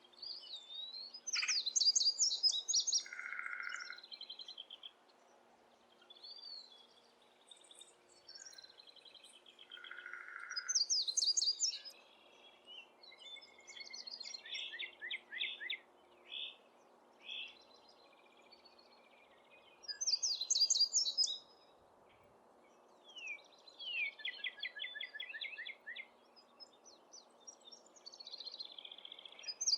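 Several birds calling and singing in turn: bursts of rapid, high-pitched chirping every few seconds, with other shorter calls in between.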